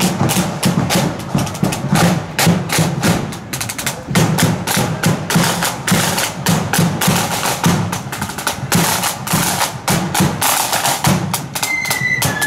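Marching flute band's drum corps playing: snare drums rattling out rolls and strokes over a steady bass drum beat. A high held flute note comes in near the end.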